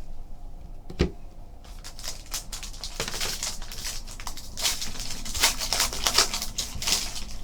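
Trading cards and their packaging being handled: a sharp click about a second in, then a long run of crinkling, rustling and sliding as cards are shuffled and pulled.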